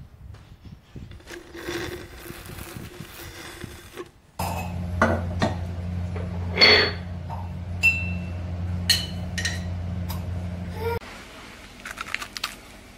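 Glass clinking and clattering as a glass jar is handled at a kitchen sink, over a steady low hum that cuts off suddenly. Near the end come a few crisp bites into a wafer bar.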